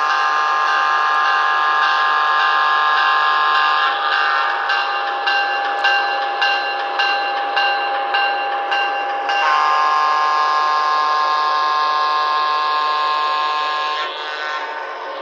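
Sound-equipped HO scale GG1 electric locomotive model sounding its horn through its small onboard speaker: a held chord of several notes for about four seconds, dropping to one steady note with quick clicks for about five seconds, then the full chord again for about four and a half seconds before it cuts off near the end, over a steady hiss.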